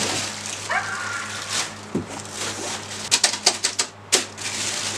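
Plastic wrapping and cardboard rustling as a boxed overlock machine is lifted out of its carton and set down. A quick run of sharp clicks about three seconds in, then a single knock.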